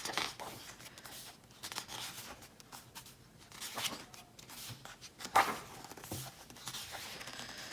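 Paper and card being handled during an album unboxing: scattered rustling and rasping, with a sharp click about five seconds in.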